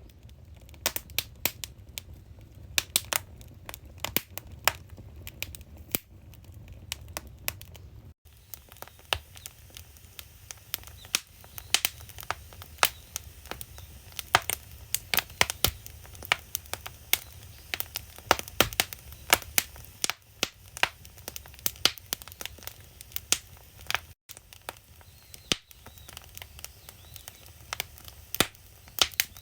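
Firewood burning in a traditional Korean agungi firebox, crackling and popping irregularly over a low steady rumble.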